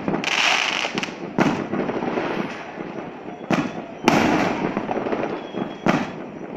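Fireworks bursting overhead: about five sharp bangs, the loudest about four seconds in, each trailing off into a lingering tail.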